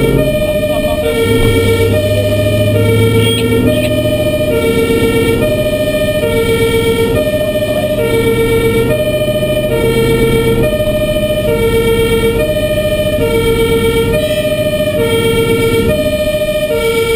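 German two-tone fire engine siren (Martinshorn) alternating steadily between a low and a high note, heard from inside the cab of an LF 24 fire engine on an emergency run, with the truck's engine running underneath.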